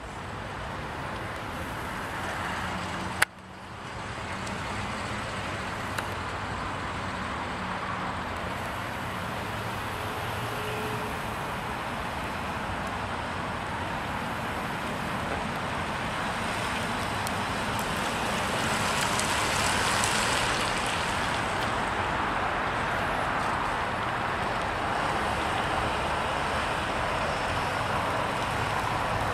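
2008 Ford F-150 pickup driving on pavement, a steady mix of engine and tyre noise that swells louder around twenty seconds in as the truck comes closer. A single sharp click about three seconds in.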